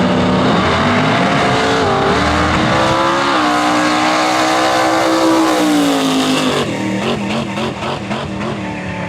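Grudge drag race cars under full throttle down the track. The engine note climbs, drops back at each gear change, about two and three seconds in, then falls and fades as the cars move away.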